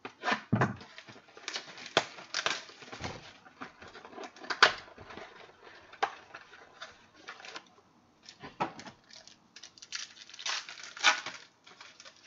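Trading-card pack wrapper being torn open and crinkled, with the cards handled: an irregular run of sharp rustles and rips.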